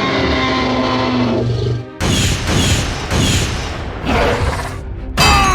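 Edited sound effects over background music: a held tone, then a sudden crash about two seconds in followed by several short falling whistles, and a louder falling whistle near the end.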